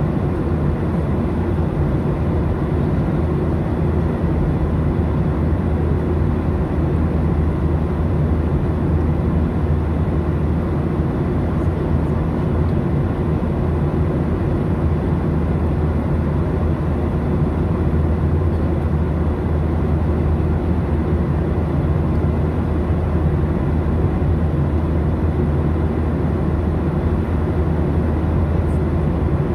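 Boeing 737 cabin noise in flight, heard inside the cabin from a window seat beside the engine: a steady low rumble of jet engines and airflow with a constant hum, unchanging throughout.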